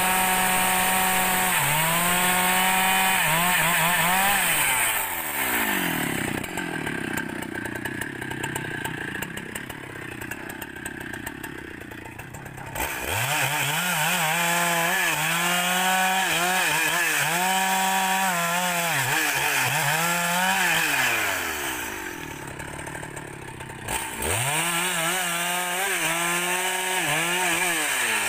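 Husqvarna 395 XP two-stroke chainsaw cutting rubberwood logs. The engine runs at high revs, its pitch sagging and recovering again and again as the chain bites and clears the wood. It eases off to a quieter, lower note twice, about five seconds in and again about twenty-two seconds in.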